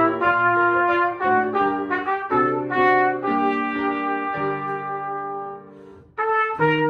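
Trumpet playing a solo melody: a run of short notes, then a long held note that fades away about six seconds in. After a brief break the next phrase starts.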